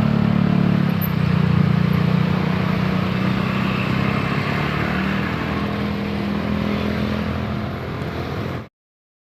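Motor vehicle engines running steadily, with a low hum that eases slightly. The sound cuts off abruptly near the end.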